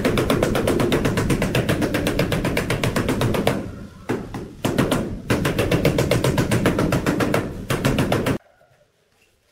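Rubber mallet tapping a large ceramic wall tile in fast, even strikes, about eight a second, to bed it into the mortar. The tapping breaks off briefly twice around the middle and stops abruptly near the end.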